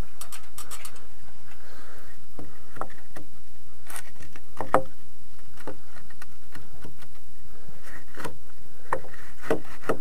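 Scattered light knocks and clicks of wood being handled, as the scaffold post and boards are touched and shifted by hand. The sharpest knock comes a little under five seconds in.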